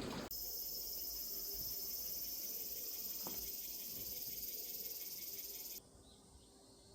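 Insects trilling in a steady, high-pitched chorus. It starts abruptly just after the start and cuts off suddenly near the end.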